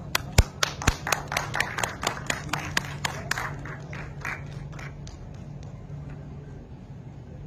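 A few people clapping, about three or four claps a second, fading out after about four seconds, over a steady low hum.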